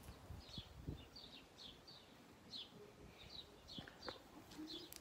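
Faint birdsong: short, high, falling chirps repeated about twice a second, with a few soft knocks underneath.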